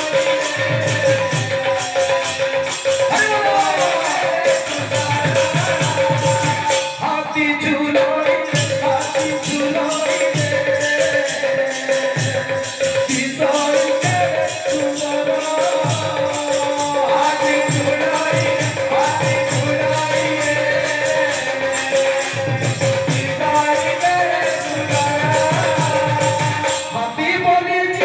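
Live devotional bhajan: male voices singing over a steady held note, with a drum beating a regular rhythm and jingling percussion. The music dips briefly about seven seconds in, then carries on.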